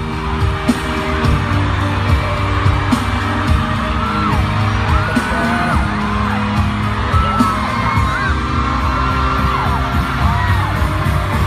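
Loud pop music with a heavy beat. High, whooping voices glide and waver over it from about four seconds in.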